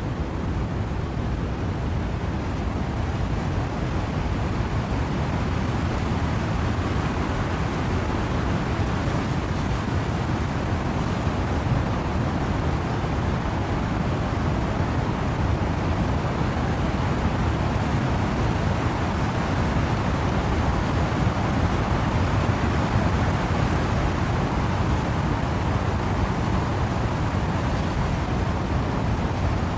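Rain falling in a steady wind through trees, a constant dense rushing noise with most of its weight in the low end and no separate drops or gusts standing out.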